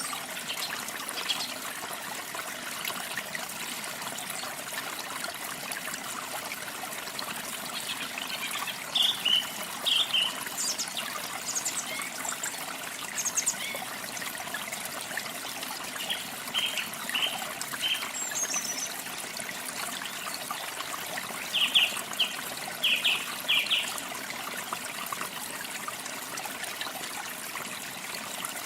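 Steady trickling water, with small birds giving short high chirps in scattered clusters over it.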